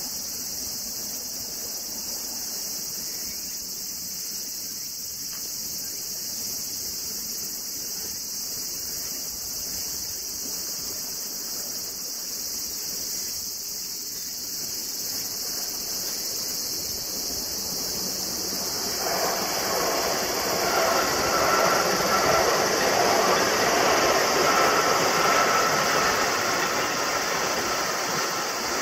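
An electric freight train of tank cars and an electric multiple unit passing on a curve: a rising rail rumble from about two-thirds of the way in, with a steady squeal over it, loudest near the end. Insects buzz steadily throughout.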